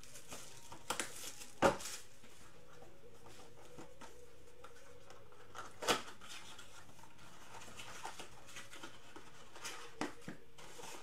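Hands handling and opening a cardboard Mosaic trading-card blaster box: scattered short taps and rustles, the sharpest about two seconds in and again about six seconds in.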